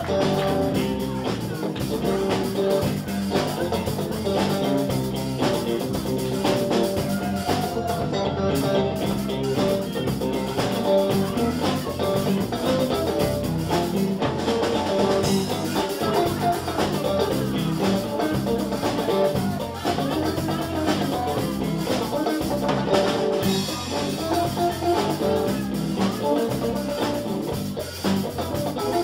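Live band playing an instrumental funk passage: electric guitar over drum kit, with a steady beat.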